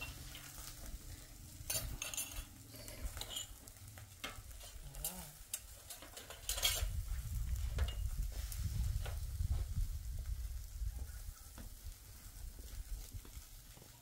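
Skewered meat sizzling over the embers of an open fire, with scattered crackles and small clicks as the skewers are handled. A low rumble swells for a few seconds around the middle.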